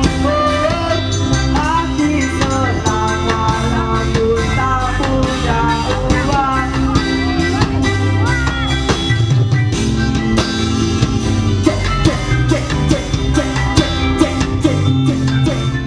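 Rock band music: drum kit keeping a steady beat under guitars and a singing voice.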